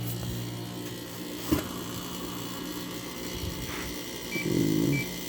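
2009 GE 10,000 BTU window air conditioner running with a steady low hum, its stiff fan motor turning. A sharp click comes about a second and a half in, and near the end there is a brief rattle with two short high beeps.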